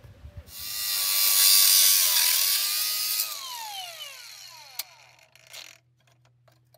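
Cordless angle grinder spinning up and worked against a metal engine housing, its whine dipping under load with a loud hiss of grinding. About three seconds in it comes off the metal and winds down over two seconds or so, with a sharp click near the end.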